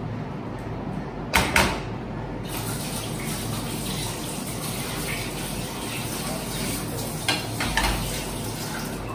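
Kitchen tap running steadily into a sink, with a few clinks of a spatula against a glass bowl about a second and a half in and again near the end.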